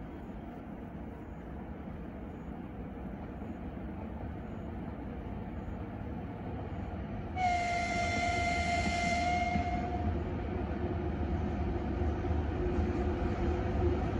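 An approaching freight train rumbling and growing louder; about seven seconds in, the locomotive sounds one steady horn blast lasting about two and a half seconds.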